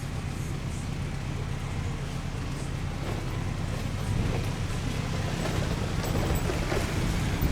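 Low steady rumble of an approaching train, growing louder about four seconds in.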